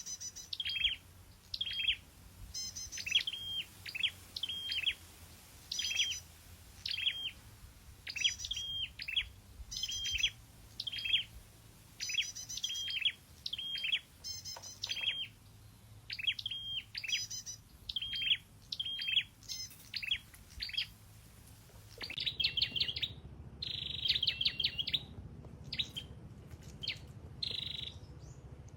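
A small songbird of the kind Vietnamese keepers call sâu đầu đỏ, singing a short high chirped phrase over and over, about once a second. Near the end it breaks into faster, denser trills.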